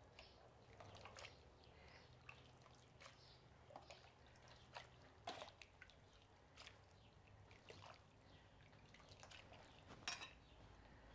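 Faint sounds of a ladle scooping boiled tomatoes and chiles out of an enamel pot and tipping them into a blender jar: wet pouring and dripping with scattered light clicks.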